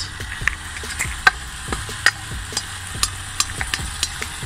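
Marinated oxtails and chopped vegetables sizzling as they land in a hot cast-iron Dutch oven: a steady hiss broken by irregular sharp pops and clicks.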